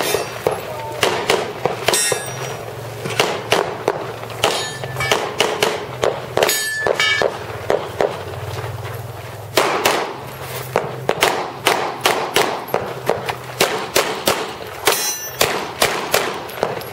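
Pistol shots fired in rapid strings during a USPSA practical-shooting stage, dozens of them at several per second, with short pauses between strings. A brief metallic ring follows a few of the shots.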